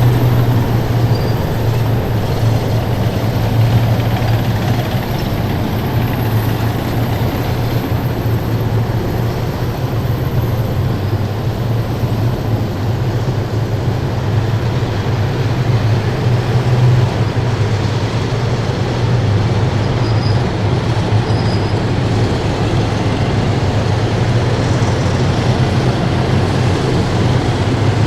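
Column of heavy military vehicles driving past close by: a loud, steady low rumble of big diesel engines and wheels or tracks on the road, without a break.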